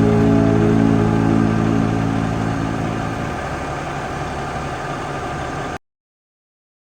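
Electronic music ending on held low tones that fade out, then cut off abruptly to silence near the end.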